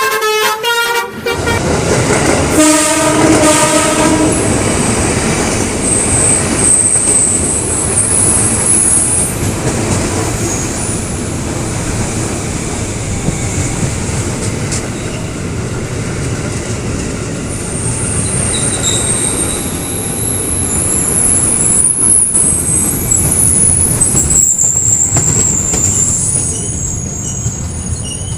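A KRL electric commuter train sounds its horn for about two seconds, then passes close by with a steady heavy rumble. High-pitched wheel squeal comes and goes over the rumble.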